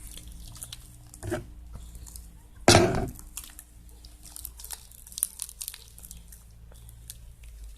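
Homemade glue-and-borax slime being worked in a bowl, giving soft sticky crackling and tearing sounds with small clicks. There is one louder knock about three seconds in.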